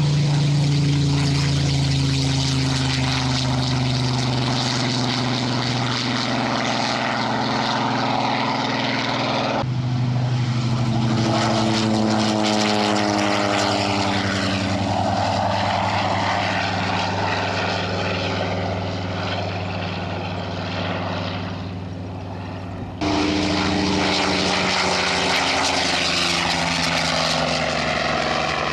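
Several Harvard trainers' radial engines and propellers droning as they fly past, with a drop in pitch as they go by about twelve seconds in. The sound changes abruptly twice, about ten and twenty-three seconds in.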